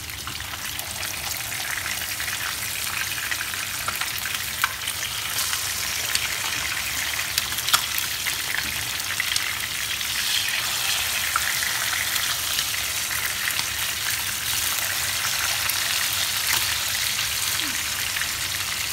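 Pomfret steaks sizzling steadily as they fry in plenty of hot oil in a pan, with occasional sharp pops and clicks while a wooden spatula turns them.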